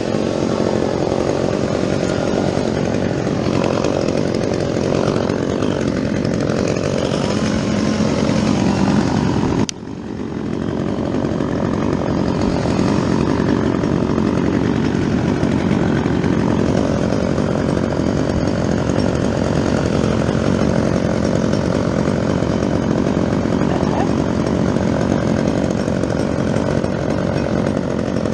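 Gas chainsaw running hard and cutting fir wood, with a brief sudden drop about ten seconds in before it picks back up.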